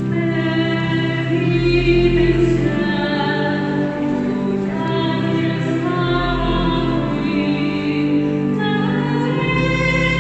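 Slow music with long held notes, over a deep bass note that comes in three times.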